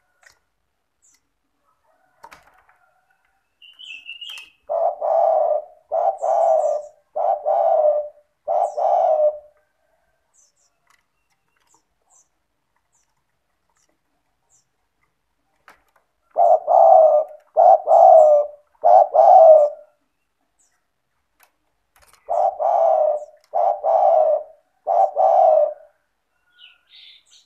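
Spotted dove (tekukur) cooing in full song: three phrases of three to four coos each, separated by long pauses. A brief high chirp comes just before the first phrase.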